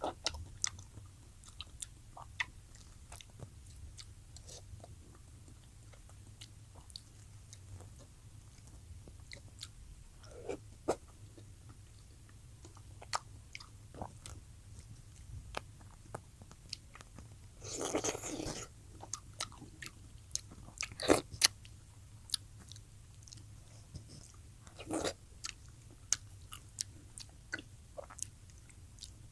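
A person eating close to the microphone: scattered small mouth clicks and smacks of chewing and biting, with a longer noisy sound about two-thirds of the way in and a few louder clicks just after.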